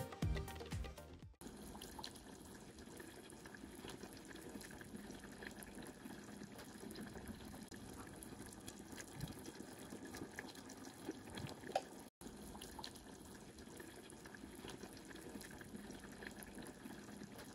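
Sugar syrup with cardamom pods boiling in a stainless steel pot: a steady, faint bubbling with small pops. Music plays for about the first second before the bubbling.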